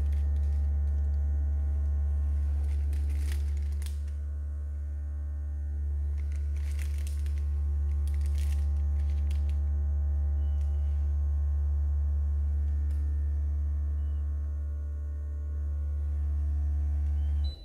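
Portable heat press humming steadily during a timed 20-second press, with a few crinkles of parchment paper under the hands. The hum cuts off suddenly near the end as the press finishes its cycle.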